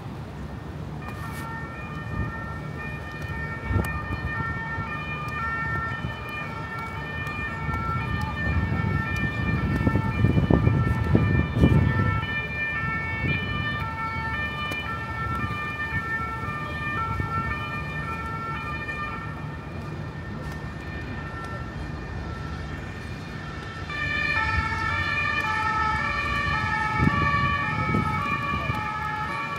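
An emergency vehicle's two-tone siren, alternating steadily between two pitches, growing louder about 24 seconds in, over a low rumble that swells for a few seconds around the ten-second mark.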